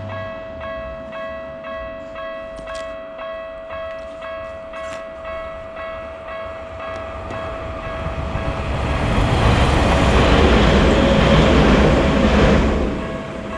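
Japanese railroad crossing warning bell ringing about twice a second. A train comes through, its rumble building from about eight seconds in, loudest for a few seconds, then dropping off quickly near the end while the bell keeps ringing.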